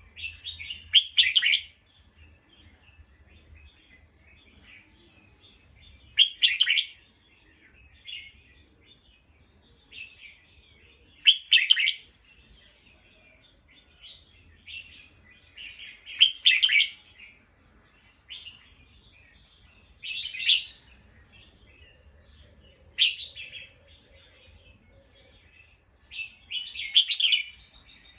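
Bulbul singing: short, bright, liquid phrases come every four to five seconds, with quieter chirps in between.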